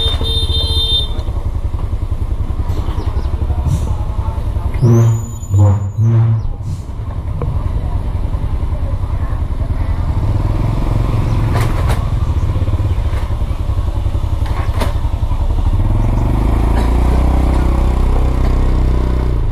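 Road traffic: motorbike and vehicle engines running close by in a steady rumble, with three short, loud pitched blasts about five seconds in.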